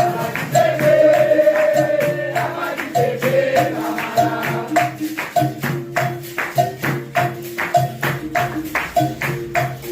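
Capoeira music: a sung line over a steady pandeiro and berimbau rhythm, the voice dropping out after about four seconds and leaving the instruments' even beat.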